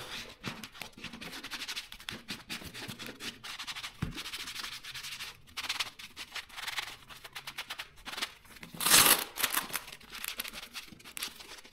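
Hands and a small sponge rubbing lotion into a leather boxing glove: a run of short scuffing strokes, with a louder, longer swipe about nine seconds in.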